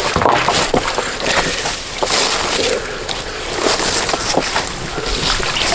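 Water splashing and sloshing as a quad (ATV) drives through a creek, with its engine running underneath.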